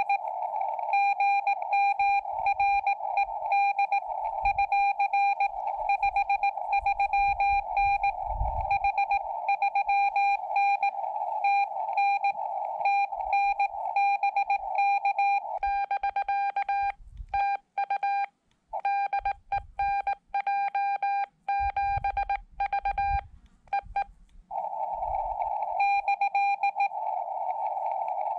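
Morse code from a Xiegu X5105 transceiver: one steady tone keyed on and off in dots and dashes, over the hiss of the radio's narrow CW filter. Past the middle the hiss cuts out between the keyed tones, and for the last few seconds only the hiss is left.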